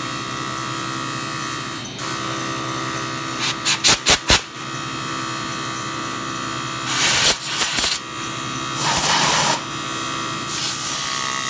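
Small electric grinder running with a steady high whine, with four short loud bursts about four seconds in and two longer rasping bursts of grinding on metal in the second half.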